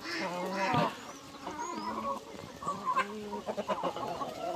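A flock of chickens clucking, with many overlapping calls, stirred up by someone trying to catch one of them.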